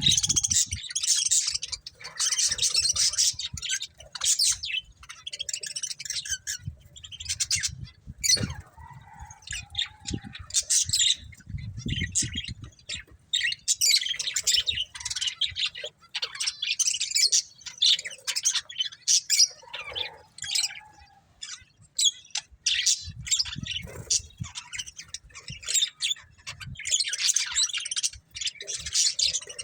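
Pet budgerigars chirping and chattering in rapid, high, scratchy bursts with short pauses between, with a few low thumps mixed in.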